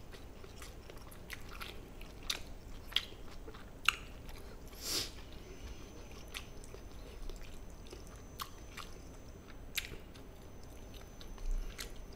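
Close-miked chewing and mouth sounds of a man eating gochujang-marinated chicken, with scattered short sharp clicks and a brief breathy rush about five seconds in.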